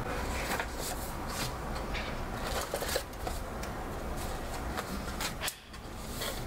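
Paper and a leather-bound journal being handled over a wooden box: soft rustles and light, irregular taps and clicks, over a steady low hum.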